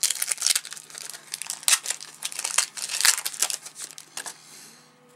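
Foil wrapper of a Topps football card pack being torn open and crinkled in the hands, a dense run of crackling that dies away about four and a half seconds in.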